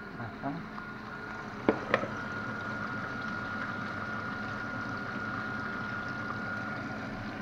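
Two sharp clicks about two seconds in, then a steady hiss with a thin, even whine: the grill pan sizzling on the gas burner while chicken breast cooks.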